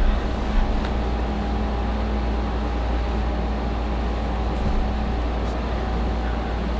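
A steady low hum with hiss, and two soft bumps within the first second from sofa cushions being handled.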